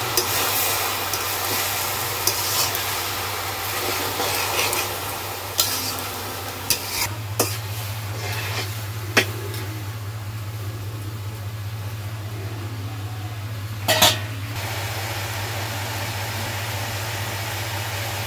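A metal spatula stirring and scraping shredded vegetables in a metal wok while they sizzle, with a few sharp clinks of the spatula against the pan around the middle.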